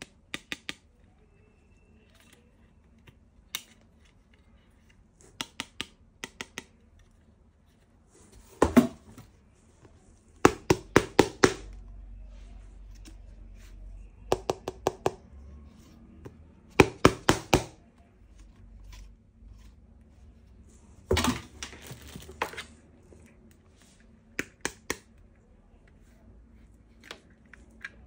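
Hard plastic toy weapon parts clicking and knocking as they are handled, the clicks coming in quick runs of three to five several times over, with a couple of heavier knocks among them.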